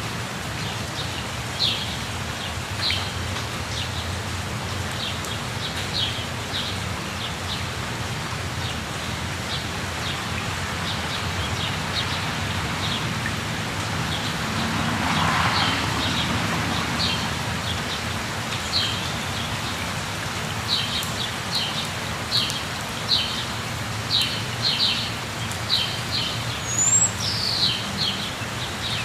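Steady rush of falling water with birds chirping over it in short, repeated calls that grow busier in the second half. A brief louder swell of rushing noise comes about halfway through.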